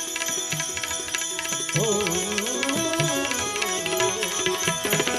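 Instrumental interlude of a Gujarati devotional bhajan: tabla with a steady, fast beat, and a wavering melody line entering about two seconds in.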